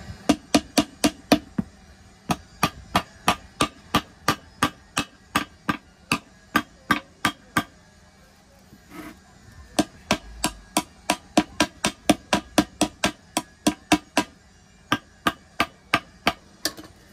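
Hammer blows on metal, a steady run of about three to four strikes a second that stops briefly and starts again, with a pause of about two seconds midway. These are the blows of straightening the bent edge of a steel wheel rim.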